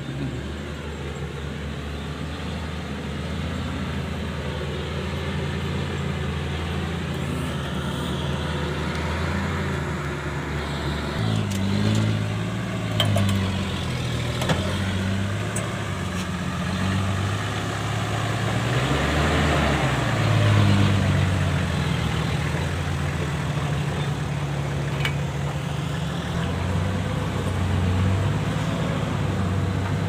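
Engines of a farm truck and a Kubota DC-105X tracked combine harvester running as they drive across muddy ground. The engine note shifts about a third of the way in and rises and falls through the middle before settling.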